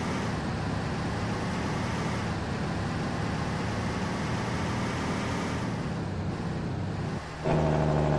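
Steady road and engine noise of a moving truck heard from inside the cab, with no music playing. Near the end a loud, steady pitched tone cuts in for about a second.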